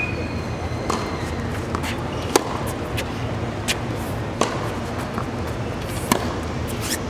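Tennis balls struck by rackets and bouncing on a hard court during a practice rally: a sharp pop every second or so, the loudest about two seconds in, over a steady background hum.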